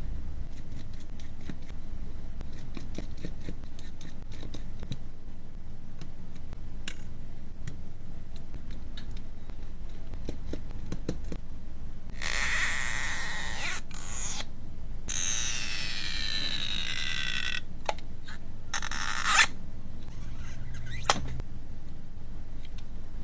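Small repair tools handling and scraping on a smartphone: faint clicks and ticks, then two loud scraping stretches with falling squeals about halfway through, and a couple of sharp clicks near the end.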